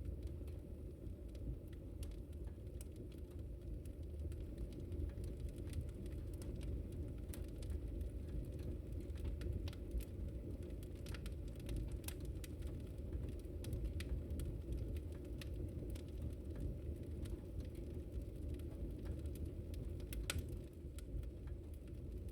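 Wood fire burning with a low steady rumble and frequent sharp crackles and pops, a few louder pops coming close together about twenty seconds in.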